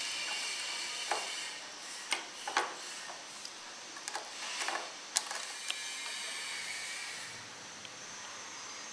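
Screwdriver fastening a plastic TV stand to its base: scattered sharp clicks and short scrapes of screw and plastic between about 1 and 6 seconds, over a steady hiss.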